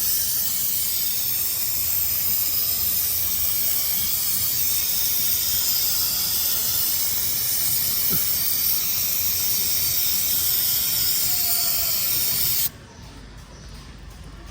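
Aerosol can of brake cleaner spraying in a long, steady hiss to clean off the work area. The spray stops abruptly about thirteen seconds in.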